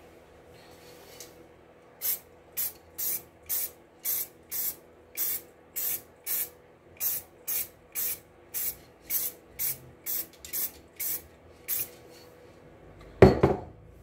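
Aerosol spray-paint can sprayed in about twenty short hissing bursts, roughly two a second, putting a thin first coat of paint on an alloy wheel rim. A loud knock near the end.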